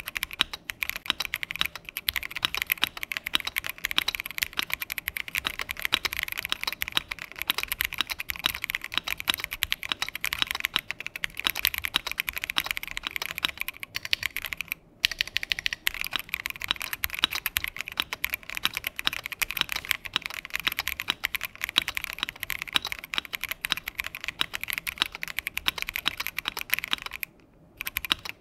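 Fast continuous typing on a Keychron Q1 Pro aluminium mechanical keyboard, fitted with Keychron's own switches and KSA keycaps: a dense clatter of keystrokes. The typing breaks off briefly about halfway through and again just before the end.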